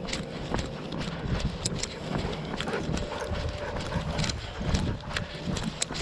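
A runner's footsteps on a dirt trail: an irregular run of crunches and knocks over a constant low rumble from the jostling body-mounted camera.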